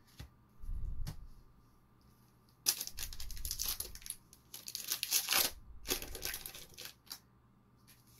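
Foil booster pack wrapper being torn open and crinkled, in two spells of rustling and tearing, the first about three seconds in and the second about six seconds in. A soft thump comes about a second in.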